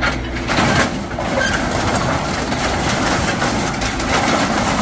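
Scrap metal clanking, rattling and scraping as a grapple claw pulls pieces from a tangled load, over the steady low running of the machine's engine.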